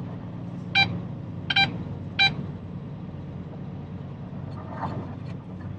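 Three short, high electronic beeps less than a second apart over the steady drone of the dump truck's diesel engine running in the cab.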